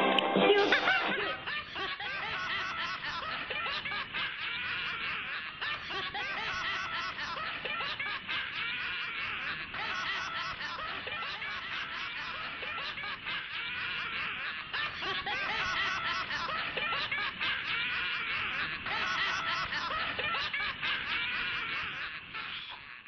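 High-pitched giggling laughter, continuous and fairly even, fading out near the end.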